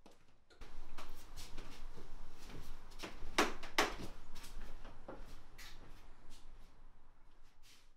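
A series of short, sharp knocks and scrapes, about two a second, loudest twice around three and a half seconds in, over a low rumble.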